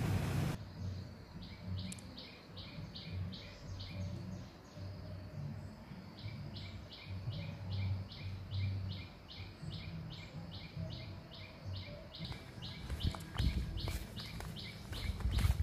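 A high chirping call repeated at a steady rate of about three times a second, pausing for a couple of seconds early on. A low rumble runs underneath, and a few sharp clicks come near the end.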